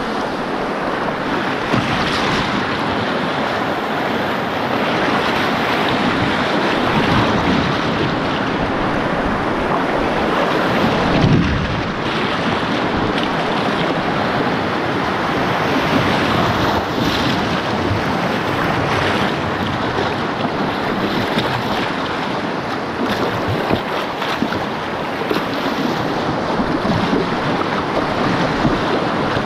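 Rushing whitewater of river rapids around a canoe, with wind buffeting the microphone and a few knocks as the canoe's stern strikes rocks.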